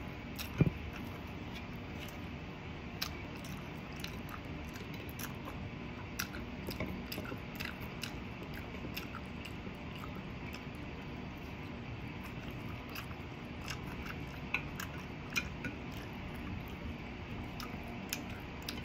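A person chewing and biting food: scattered small crunches and mouth clicks at an uneven pace over a steady background hiss, with one sharper click just under a second in.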